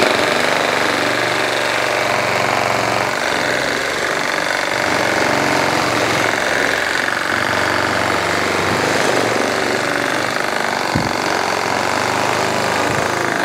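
JLD cordless reciprocating saw with a wood-cutting blade, sawing through a thick wooden beam. It runs steadily under load throughout.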